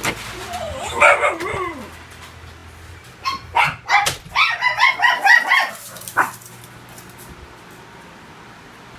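A dog barking in a quick run of about eight barks, starting about three seconds in, with one last bark a moment later.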